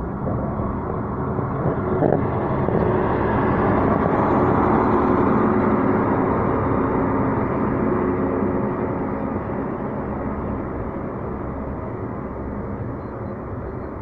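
Passenger train coaches rolling past on the adjacent track: a steady rumble of wheels on rail that swells to its loudest about four to six seconds in, then eases off.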